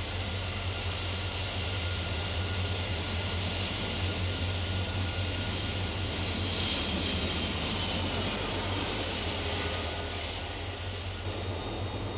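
CIÉ 071 class diesel-electric locomotive moving slowly over an inspection pit, its wheels giving a steady high squeal over the low hum of the running engine.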